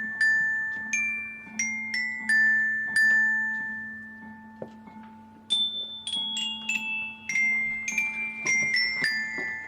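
Glockenspiels playing a slow, student-composed requiem melody: single high struck notes that ring out and fade, coming more quickly in the second half.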